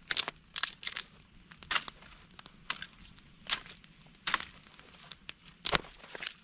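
Dry wood cracking and snapping at a burning campfire: about a dozen sharp, irregular cracks, the loudest one near the end.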